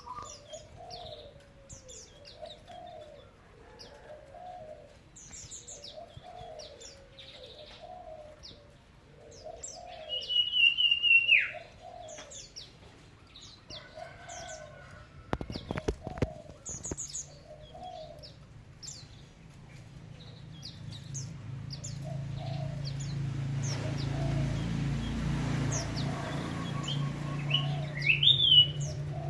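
Mountain white-eyes chirping in short, high notes while a dove coos over and over in the background. About ten seconds in a loud drawn-out whistle falls in pitch, and near the end a brief whistle rises. A low hum builds up through the second half.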